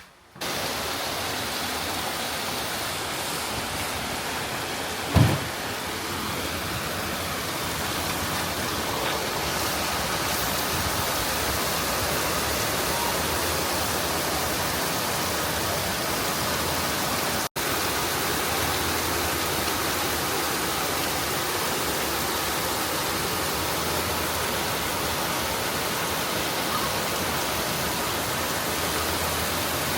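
Steady rain falling, an even hiss throughout, with a single low thump about five seconds in and a momentary break around the middle.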